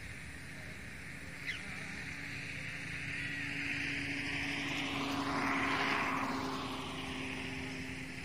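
A passing motor, most likely a propeller aircraft, with a steady hum that grows louder to a peak about six seconds in and then fades away.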